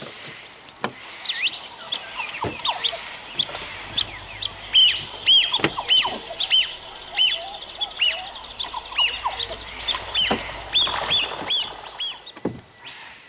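Birds calling: a run of short, arching whistled notes repeated over and over, with a few lower calls among them, over a steady high hum.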